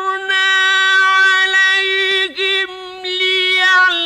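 A man's voice chanting Qur'an recitation in the melodic mujawwad style, holding long, steady notes on the words 'a'tharna 'alayhim', with a brief dip in pitch a little past two seconds.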